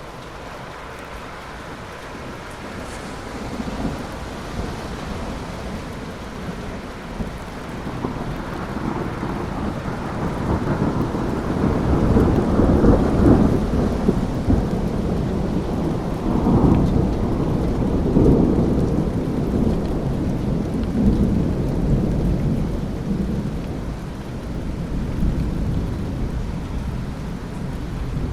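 Thunder rumbling over steady rain: the rumble builds a few seconds in, rolls loudest through the middle in several long swells, and eases off near the end while the rain keeps falling.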